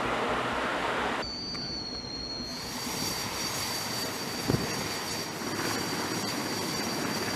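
Flight-deck noise of a jet: a rushing hiss, then a steady high-pitched jet whine over it, with a single short thump about halfway through.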